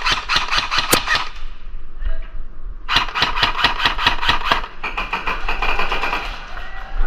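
Airsoft guns firing rapid strings of shots in two bursts, one in the opening second and another from about three seconds in.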